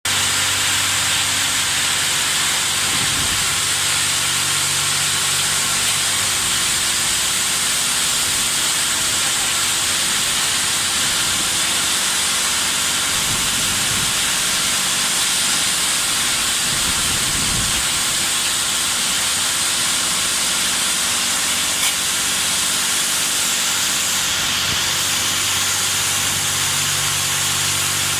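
High-pressure water jets of an automatic touchless car wash spraying with a steady hiss, over a faint low hum.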